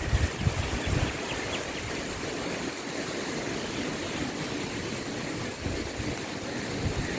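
Steady rushing and splashing of water, with a few low gusts of wind buffeting the microphone in the first second.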